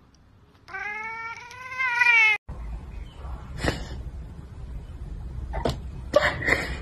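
A cat's long drawn-out meow lasting under two seconds, its pitch rising at the end. After a cut come a few shorter, quieter knocks and sounds.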